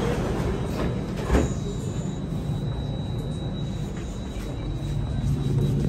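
Interior of an Alstom Metropolis C830 metro car, standing with its doors shut: a steady low rumble with a thin high tone, and a single knock about a second and a half in as the doors seal. Near the end a low hum builds from the Alstom ONIX IGBT-VVVF traction drive as the train begins to pull away.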